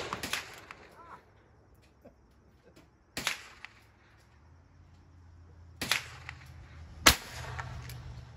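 Three sharp cracks, about three seconds in, near six seconds and again a second later, the last the loudest, over a low steady hum in the second half.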